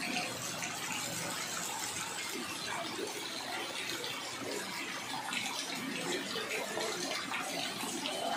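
Rain falling onto a flooded street, a steady hiss of drops striking the standing water.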